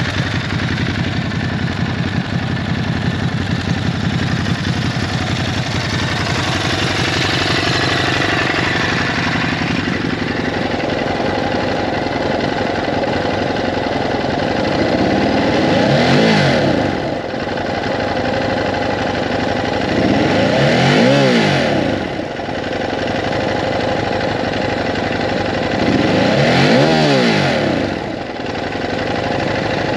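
Ducati Hypermotard 950's 937 cc L-twin idling in neutral, then revved three times, the pitch rising and falling back to idle each time, about five seconds apart.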